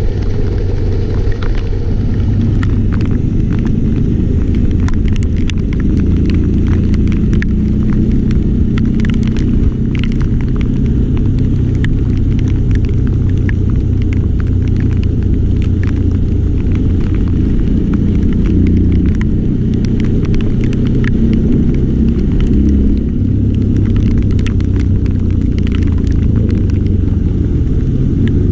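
Steady low rumble of a road vehicle on the move, with scattered sharp ticks throughout.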